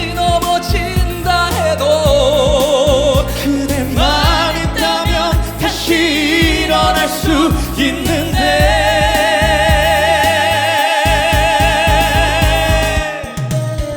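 Male voices singing a ballad duet over band accompaniment: quick vocal runs, then from about 8 s in a long high note held in harmony with wide vibrato, released near the end.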